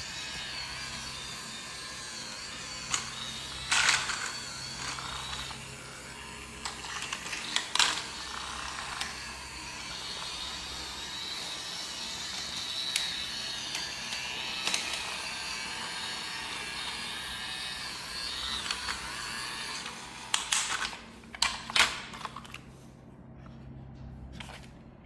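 Small electric motor of a wooden DIY robot vacuum toy kit running with a steady whir, with several sharp knocks and clicks from handling the toy; the whir stops about three seconds before the end.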